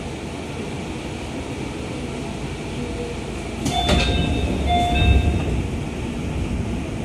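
211 series EMU's pneumatic sliding doors opening at a station stop: a sudden clunk and rush of air about four seconds in, with two short pitched tones, over the steady low hum of the stationary train.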